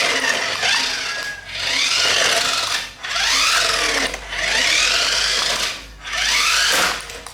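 Small electric motor of a radio-controlled toy car whining as it spins up and back down in repeated bursts, about one every second and a half, rising then falling in pitch each time.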